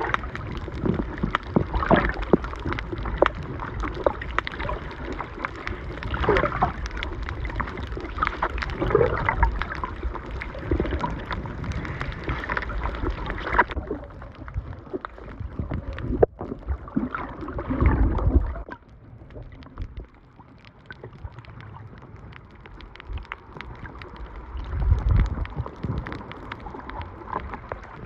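Water noise picked up by a camera underwater: muffled sloshing and gurgling with irregular small knocks. About halfway through it changes abruptly and turns duller.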